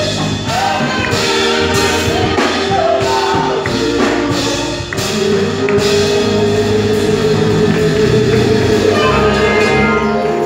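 A choir singing a carol with instrumental accompaniment and a steady beat. About halfway through, the music settles into one long held note.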